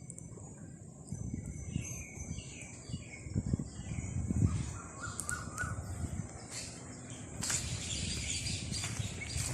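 Birds calling repeatedly, with short falling calls in the first couple of seconds, over a low uneven rumble.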